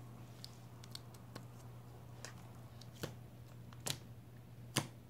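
Homemade wood-glue slime being pressed and poked with the fingers, giving a scatter of small sharp clicks and pops, the two loudest near the end.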